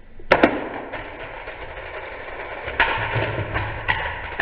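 Hot Wheels Race Case's spring-loaded push-button launcher fires with a sharp double snap, sending both die-cast cars off at once. The cars then rattle along the plastic track, with several louder knocks in the second half.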